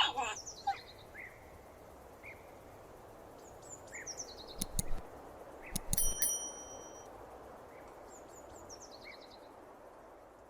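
Faint outdoor ambience with a steady hiss and a small bird's quick descending chirp series, heard three times. A few knocks and a brief metallic ding come in the middle.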